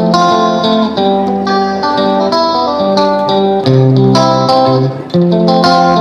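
Background music with plucked, guitar-like notes in a steady rhythm over changing bass notes.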